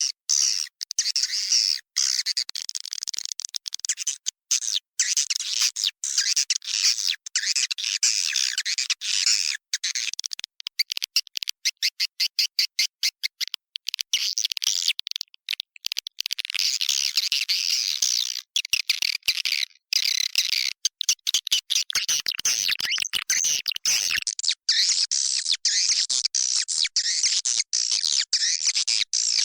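Swiftlets twittering in a dense flock, a steady stream of high-pitched chirps broken by many brief dropouts. This is a swiftlet-house lure call, recorded in an occupied swiftlet house.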